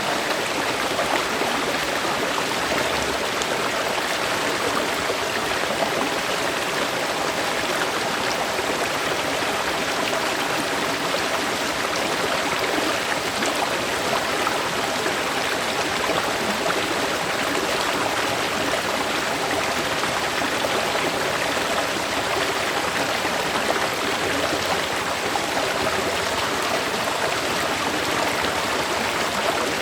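River water flowing steadily: an even, unbroken rush of running water.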